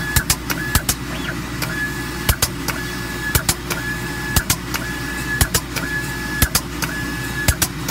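FSCC06 selective spray coater at work: a steady hum and hiss, with sharp clicks several times a second and a short high whine that switches on for about half a second roughly once a second as the spray gun moves over the board.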